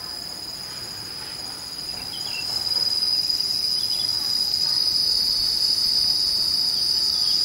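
Steady, high-pitched insect drone from the trees, swelling louder about two and a half seconds in and then holding level.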